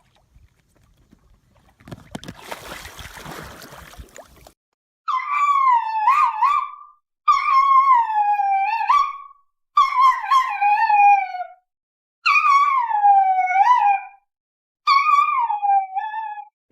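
A dog howling: five drawn-out howls of about two seconds each, every one wavering and sliding down in pitch, with short silent gaps between them. They are preceded by a couple of seconds of faint rustling.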